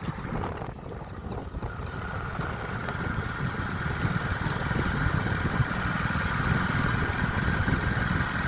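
Motorbike running on the move, with heavy wind buffeting the microphone; a steady whine joins in about two seconds in.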